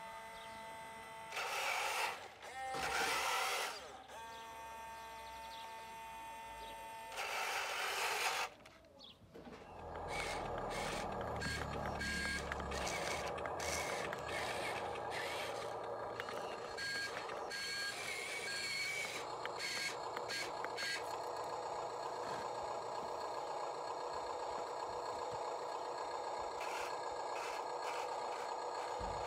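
Radio-controlled model construction machines running, with the steady electronic hum of their sound units and a reversing beeper giving short repeated beeps. A few louder noisy bursts come in the first eight seconds.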